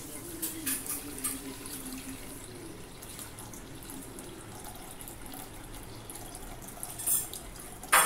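Water pouring steadily from a plastic bottle into the stainless-steel pot of a Green Chef 1.8-litre electric kettle as it fills, with a sharp click about seven seconds in.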